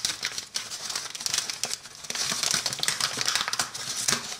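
Paper bag of wheat flour being handled and its folded top opened, crinkling in many quick, irregular crackles.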